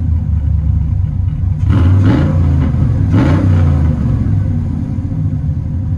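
Cammed Vortec 5.3 L V8 of a 1984 Chevy C10, breathing through long tube headers, high-flow cats, Black Widow mufflers and side pipes, idling and blipped twice, about two and three seconds in, heard from inside the cab.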